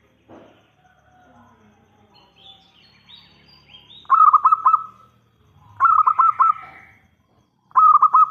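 Zebra dove (perkutut) cooing: three loud, staccato coo phrases about two seconds apart, the first about four seconds in, each a quick run of clipped notes. Faint high rising chirps of another bird come just before them.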